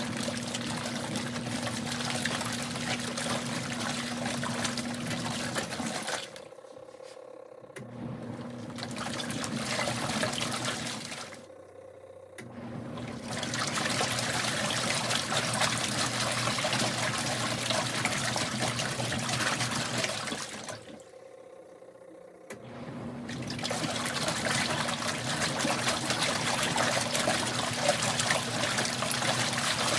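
Kuppet portable washing machine in its wash cycle: the motor hums and the agitator churns the water and clothes. It stops briefly three times, then starts again, as the wash action pauses and resumes.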